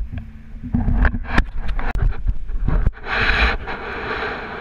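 Wind buffeting the microphone on a kayak, with repeated knocks and scrapes against the hull. About three seconds in there is a short burst of rushing noise.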